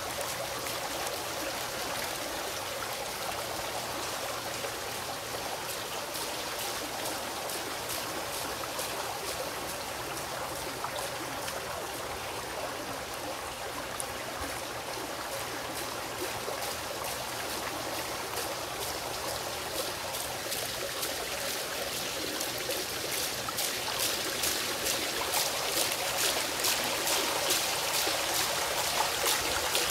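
A water fountain bubbling up in a stone basin: a steady rush of splashing water that grows louder and sharper over the last several seconds.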